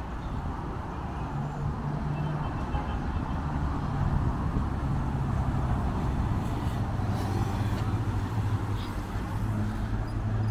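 Road traffic on a nearby road: a steady wash of passing cars and minibuses, with a low engine drone that gets louder toward the end as the road comes closer.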